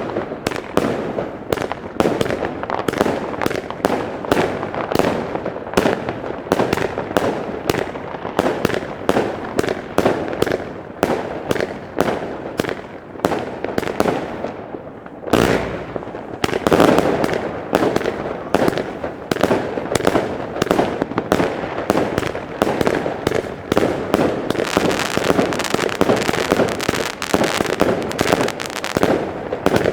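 Iskra Okazija firework battery firing shot after shot, several bangs a second, steady and dense. One heavier bang comes about halfway through.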